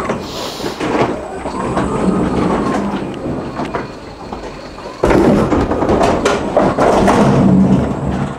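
Pallet truck rolling a loaded IBC tank across the floor of a truck's box, its wheels rattling and clattering. It gets abruptly louder about five seconds in.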